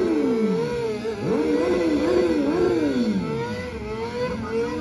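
A vehicle engine revved hard during a burnout, its pitch swooping down and back up several times as the throttle is worked.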